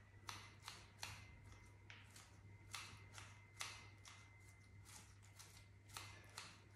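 Kitchen scissors snipping fresh parsley inside a glass: faint, crisp cuts coming irregularly, one or two a second.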